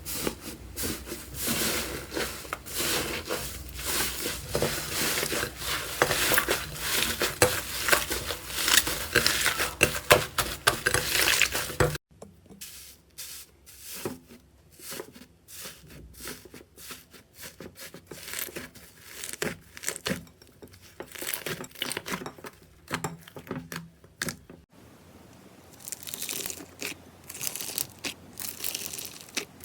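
Hands working slime, with dense sticky crackling and popping for about twelve seconds, then sparser pops and clicks. The sound changes abruptly twice, about twelve seconds in and again near the end.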